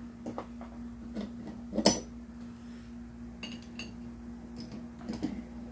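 Metal hand tools, locking pliers and a wrench, clinking against a steel injector-cup installer tool as it is snugged up: a sharp clink about two seconds in and a few ringing taps around three and a half seconds. A steady low hum runs underneath.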